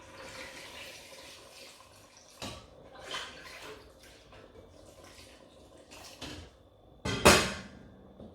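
Water being poured into a pot of cooking okra soup, with a short splashing burst about three seconds in, and a single loud knock near the end.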